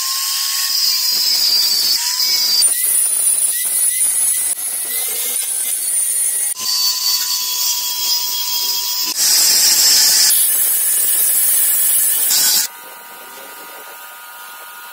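A handheld power tool running under load, with a high hiss and a thin whine, in several short clips joined one after another. It cuts off about 13 seconds in, leaving quieter steady tones.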